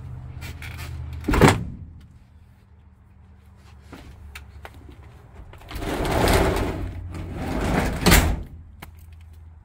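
A loud thump about a second and a half in as the folding bench seat drops into place, then a 1978 Volkswagen bus's sliding side door rolling along its slightly gritty track for a couple of seconds and banging shut near the end.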